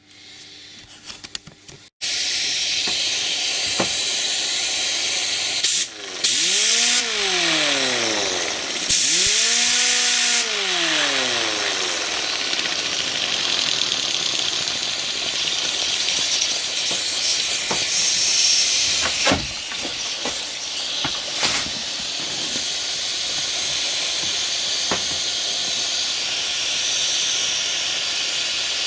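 Vintage air-powered sander on a compressed-air line: a loud steady hiss of air starts suddenly about two seconds in. Twice, near the middle, the motor spins up and winds down with a rising then falling whine. It spins but has no power or torque, so it is suspected broken.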